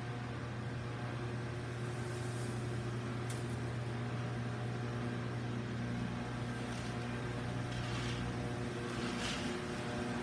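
Drum coffee roaster running with a steady low hum from its motors and fans. A few faint, brief hisses sound over it.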